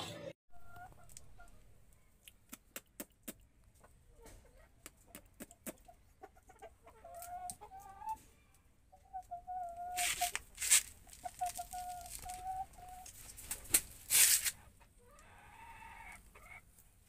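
Parrot-beak Aseel chickens clucking with low, drawn-out calls, repeated several times. Scattered clicks run under the calls, and there are two loud noisy bursts, about 10 and 14 seconds in.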